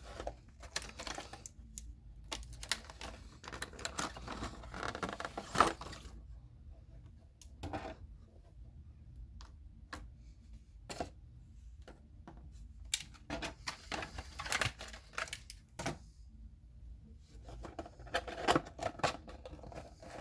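A die-cast model airliner's cardboard box being opened and unpacked by hand: irregular clicks, taps and rustling of the packaging. The sounds come in bursts, with quieter stretches between.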